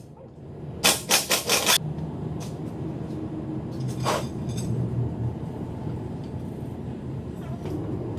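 Mechanic's tools working on the torque converter bolts: a quick run of about five sharp metallic clacks about a second in, then a low steady hum with a single click partway through.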